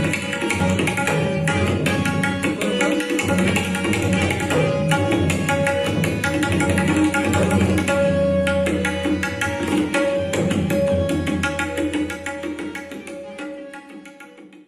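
Fast tabla solo: dense, rapid strokes with a recurring ringing pitch, fading out over the last couple of seconds.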